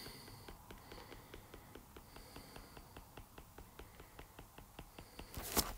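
Faint, even ticking, about seven or eight light ticks a second, with one short, louder noise near the end.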